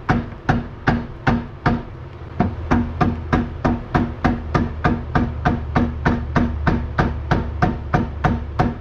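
Repeated hammer blows, about three a second, on a Honda 400EX's rear axle bearing carrier to knock the stuck carrier out of the swingarm, each strike with a short ring; a brief pause about two seconds in, then the blows come steadily again.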